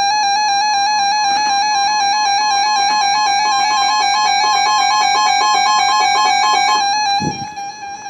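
Weather alert radio sounding its alarm for a received severe thunderstorm warning: a loud electronic tone hopping rapidly between two pitches. It drops in level about seven seconds in, with a brief low thud.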